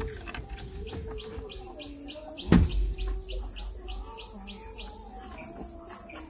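Regular chirping, several short falling chirps a second, with a faint wavering tone underneath. A single loud thump comes about two and a half seconds in.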